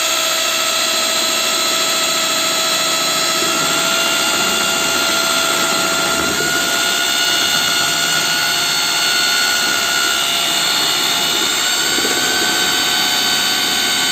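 Handmade electric putty mixer running steadily, its paddle churning waterproof putty powder into water in a bucket. The motor gives a steady whine that edges slightly higher in pitch over the stretch, over a churning noise.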